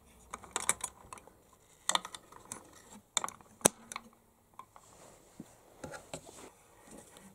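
Small metal clicks and taps from an LGA1155 CPU socket's retention plate being lowered over the processor and its steel lever pressed down and hooked under its latch. The clicks are scattered and irregular, the sharpest about two seconds in and again around three and a half seconds.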